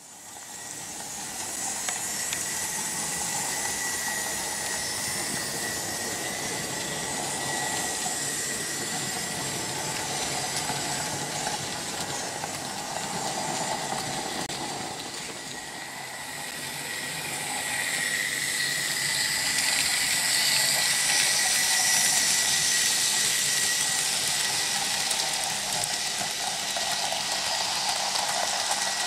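Märklin H0 model trains running on metal M-track: a steady hiss and rumble of wheels on the rails with a thin, steady whine over it. It fades in at the start and swells louder about two-thirds of the way through as a train runs close by.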